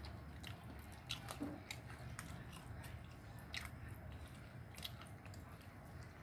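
A cat chewing and biting into fish: irregular crunching clicks, a few a second at most and sharpest around one to two seconds in, over a steady low hum.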